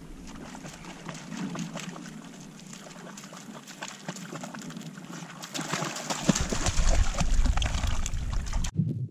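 A dog wading through shallow pond water, with small splashes that grow louder about two-thirds of the way in as it comes up close, then stop abruptly near the end.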